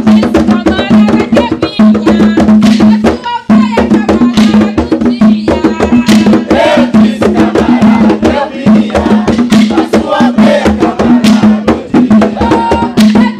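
Maculelê music: wooden sticks clacking together in a fast rhythm over a steady drum beat, with voices singing.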